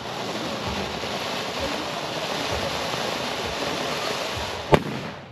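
Ground fountain firework hissing steadily as it sprays a column of sparks, with one sharp bang near the end before the hiss dies away.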